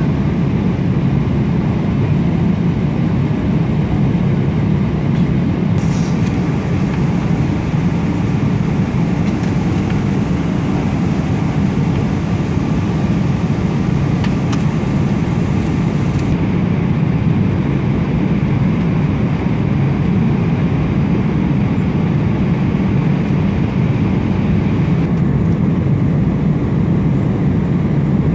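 Steady low roar of a jet airliner's cabin in cruise, the engine and airflow noise heaviest in the low end, with a few faint ticks in the middle.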